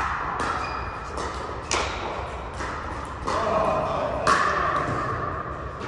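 Pickleball paddles striking the hard plastic ball: a string of sharp pops at irregular intervals, each echoing in a large indoor hall.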